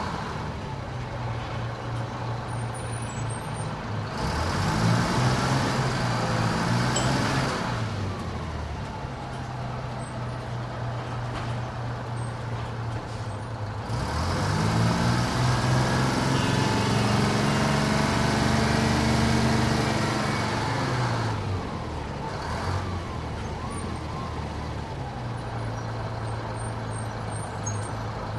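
A TMC RTS city bus's engine running at idle, then twice revving up as the bus pulls away, its pitch climbing in steps through the gears. The longer climb runs for about seven seconds, and each time the engine drops back to a steady idle.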